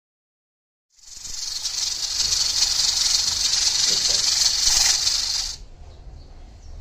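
Steam hissing steadily from a pressure cooker's valve while the cooker is at full pressure. The hiss starts about a second in and cuts off abruptly some four and a half seconds later.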